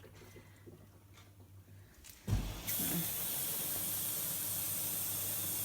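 Fisher & Paykel front-loading washing machine filling with water: a low hum, then about two seconds in a sudden steady hissing rush of water spraying into the machine.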